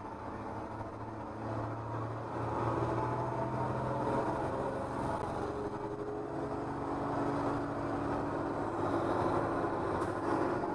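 School bus engine running hard under throttle, heard from inside the cab, getting louder about two seconds in as the bus pulls along behind other buses. A brief sharp knock comes near the end.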